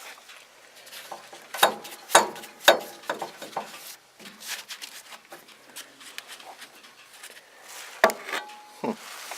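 Sharp knocks and clanks of parts under a pickup truck being handled: three loud ones about half a second apart, starting about one and a half seconds in, then a few lighter taps. Near the end come two more knocks, one with a brief ringing tone after it.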